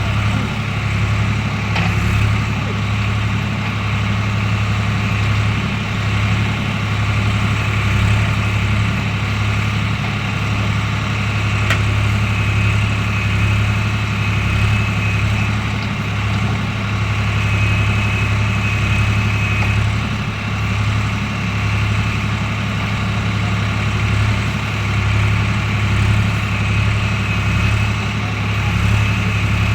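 Swaraj tractor's diesel engine running steadily at a constant low speed, with no revving.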